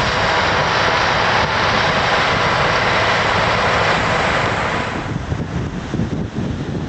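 Bulldozer engine running steadily at work on the sand, dropping away about five seconds in, leaving gusts of wind buffeting the microphone.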